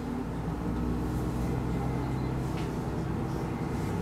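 Diesel railcar running along the track, heard from inside the car: a steady low engine drone with a few held tones, and a few faint clicks.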